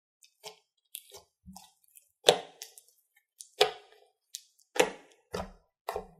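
Crunchy slime being pressed and kneaded by hand, giving a string of sharp crackling pops about once a second. The loudest pop comes about two seconds in.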